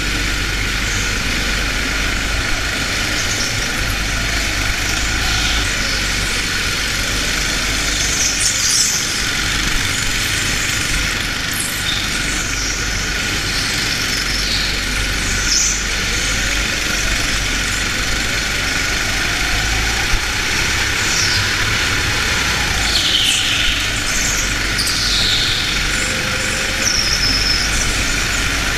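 Racing kart heard from onboard, its motor running steadily at speed while the tyres squeal on the polished indoor floor in short high-pitched glides, several times through the corners.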